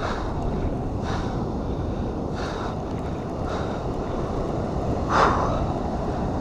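Steady wind noise on the microphone over breaking surf, with short hissing rises about once a second; the loudest comes about five seconds in.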